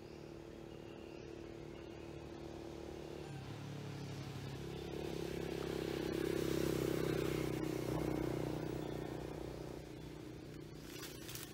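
A motor vehicle's engine humming, its pitch shifting about a third of the way in, growing to its loudest past the middle and then fading, like a vehicle going past. A few short clicks come near the end.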